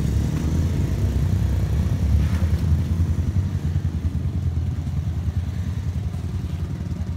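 Stunt motorcycle's engine running at low revs, a steady low rumble.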